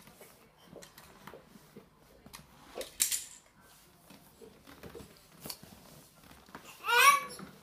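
Small toy cars clicking and rattling as they roll down a ramp and onto a wooden parquet floor, with a brief louder clatter about three seconds in. Near the end a toddler lets out a short high squeal, the loudest sound.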